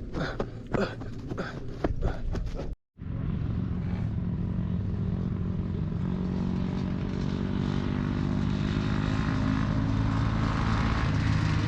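A few quick scraping strokes of a knife whittling a wooden stick. Then, after a short break, a motor runs steadily, its pitch rising slightly partway through.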